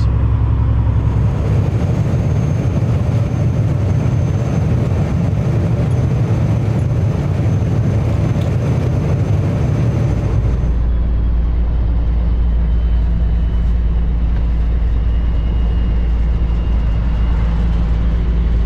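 Cab interior of a 2008 Kenworth W900L semi truck cruising at highway speed: its Cummins ISX diesel drones steadily under tyre and road noise. About ten seconds in, the sound changes abruptly to a deeper, steadier low rumble.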